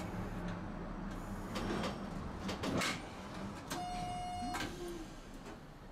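Inside a streetcar, scattered knocks and rattles, then a single electronic beep lasting just under a second about four seconds in.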